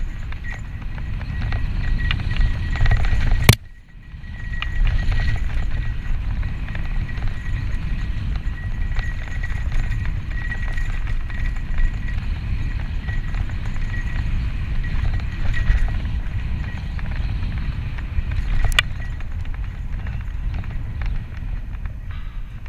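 Santa Cruz Tallboy LTc mountain bike descending dirt singletrack at speed: wind buffeting the GoPro microphone over the rumble and rattle of tyres and frame on the rough trail, with a thin steady high buzz underneath. A sharp knock comes about three and a half seconds in, after which the rumble drops out for about a second, and another knock comes near the end.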